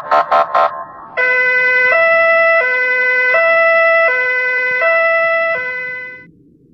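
Two-tone ambulance siren alternating between a low and a high note about every three-quarters of a second, fading out near the end. A quick run of short pulsed tones comes just before it.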